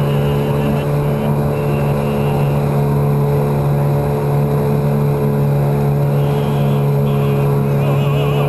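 Yamaha 9.9 hp two-stroke kicker outboard running at wide open throttle, pushing a loaded 17-foot boat; the engine drone holds steady at one pitch.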